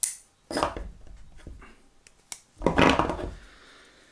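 Handling noises from a black folding knife, a liner lock converted to non-locking, as it is opened and closed by hand. There is a sharp click at the start and another a little after two seconds, with rubbing and scraping between them; the loudest comes about three seconds in.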